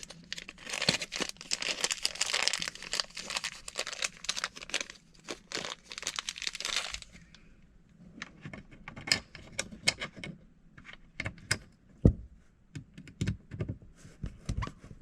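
Close rustling and scraping of hands and a head-worn camera brushing against the dash trim while screws are being started into a dash rail mount. About halfway through this gives way to scattered light clicks and taps of the screws and the hardware being handled.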